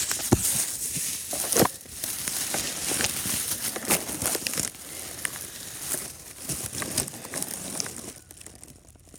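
Dense crinkling and crackling rustle of a person moving through dry brush, irregular and with no rhythm, quieting near the end.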